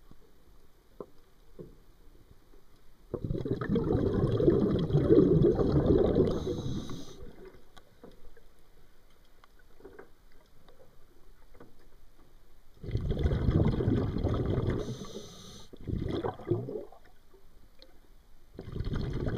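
Underwater, a diver's exhaled breath bubbling out in four bursts of one to four seconds each, with quieter stretches between them.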